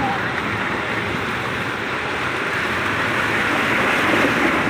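Floodwater churning and splashing around a minibus van's wheels as it drives through knee-deep water, a steady wash that swells slightly near the end as the van passes close.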